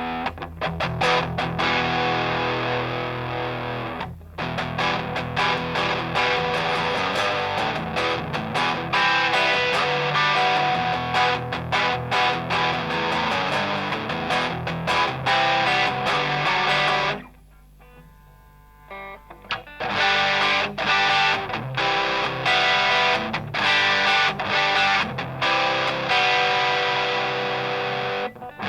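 Electric guitar played through a Grindcustoms Feng Drive overdrive pedal: distorted chords and riffs, with a break of about two seconds a little past halfway.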